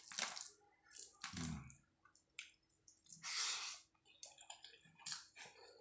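Faint, wet, squishy sounds of fingers kneading rice with soft mashed pumpkin on a steel plate and of the mouthfuls being eaten: short scattered squelches, with a half-second hiss about three seconds in.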